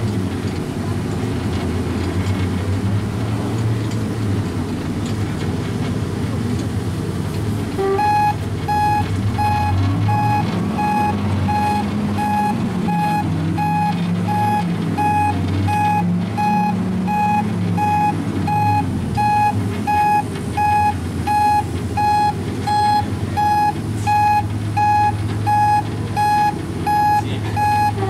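Engine of a Type 94 beach minelayer vehicle running, its pitch rising and falling as it manoeuvres. About eight seconds in, a back-up alarm starts beeping steadily, nearly two beeps a second, and the beeps are the loudest sound from then on.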